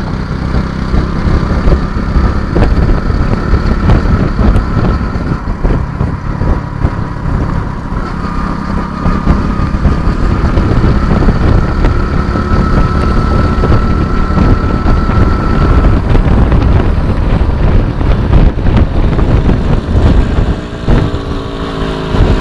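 Motorcycle engines running at road speed, heard from a moving motorcycle, with heavy wind rumble on the microphone. Near the end a motorcycle engine sounds closer and clearer as another bike draws alongside.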